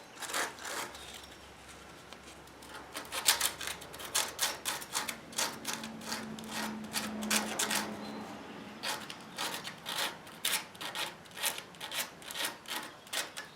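Irregular run of short scraping, rubbing strokes against the metal of a radiator, about one or two a second, as the leak area is worked over during a solder repair.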